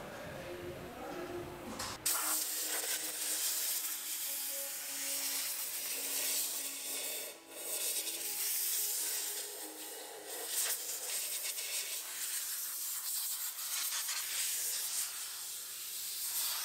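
Compressed-air blow gun hissing steadily as it blasts air through the Porsche Cayenne's body water drains to clear them, starting about two seconds in and cutting out briefly about midway.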